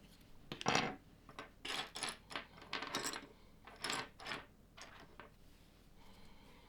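Small plastic LEGO pieces clicking and clattering as they are handled and pressed together: a dozen or so short, sharp clicks over about five seconds, then quieter near the end.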